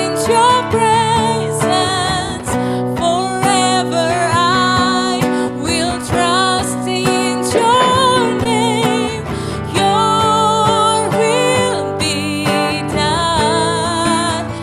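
Live worship band music, with a singer's wavering melody held over sustained instrumental chords.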